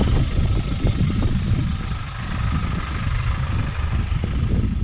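Land Rover Defender's engine running at low revs as the 4x4 drives slowly past close by on wet grass, a steady low rumble.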